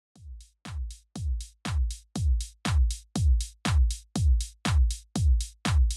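Electronic intro music: a steady drum-machine kick beat, about two deep kicks a second, fading in over the first second or so.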